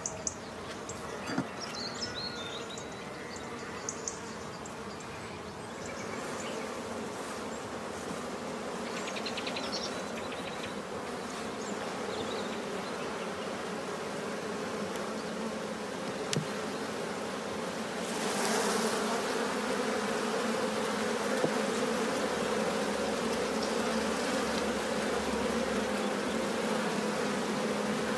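Honeybees buzzing around an opened hive, a steady hum that grows louder about two-thirds of the way through.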